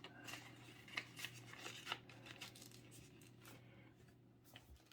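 Faint crinkles and light clicks of a folded paper boat being handled, busiest in the first couple of seconds, over a low steady hum.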